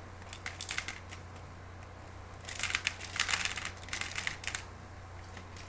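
Plastic airsoft BBs rattling and clicking against a plastic speedloader as it is filled and handled, in three short bursts of clatter.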